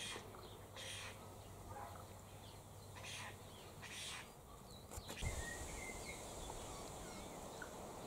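Faint outdoor ambience with distant birds calling: several short calls in the first half, a single click about five seconds in, then faint small chirps.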